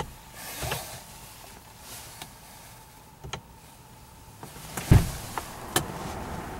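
Plastic overhead room-lamp housing in a car headliner being handled by hand: a few sharp plastic clicks, with one heavier knock about five seconds in.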